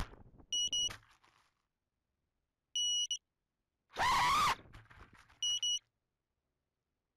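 HappyModel Larva X HD quadcopter lying crashed: short electronic beeps, a pair near the start, one at about three seconds and another pair near the end. Around four seconds in, its motors whine up and down briefly as it tries to lift off.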